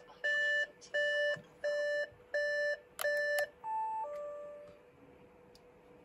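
Audi A6 C7 instrument-cluster warning chime for a door opened with the ignition on: a string of identical beeps, about one and a half a second, five of them. This is followed a little after three seconds in by a two-note gong, higher then lower, that rings out and fades.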